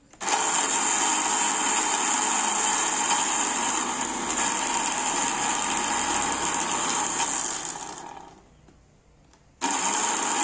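Philips HR1731 blender motor running empty, a steady whine; switched off about eight seconds in, it winds down to quiet, then starts again suddenly about a second and a half later.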